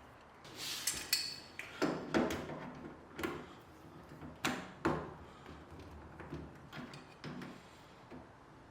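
Pliers squeezing spring wire hose clamps and working them down over a rubber washing-machine sump hose: a series of sharp clicks and knocks of metal on metal and plastic, loudest in the first half.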